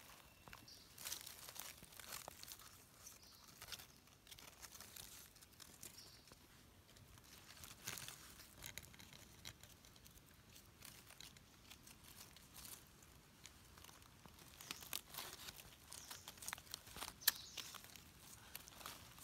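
Faint, scattered crackling and rustling of dry fallen leaves as mushrooms are picked and trimmed by hand with a knife, with one sharper click near the end.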